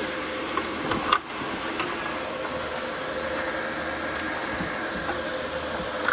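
Steady whir of cooling fans with a constant hum, as from GPU mining rigs running. A few short clicks and knocks about a second in.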